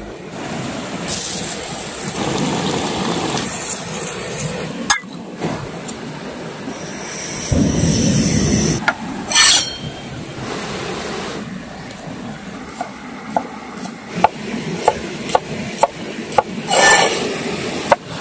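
Camp cooking over a small gas-canister stove with a pot, a steady hiss with occasional clatter, then a cleaver chopping chillies on a wooden board, a series of sharp knocks in the last few seconds.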